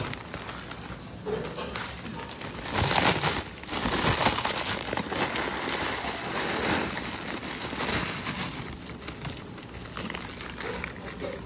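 Plastic instant-noodle packet crinkling as crushed dry noodles are poured from it into a pan, the dry pieces rattling down onto the chopped vegetables. It is loudest about three to five seconds in.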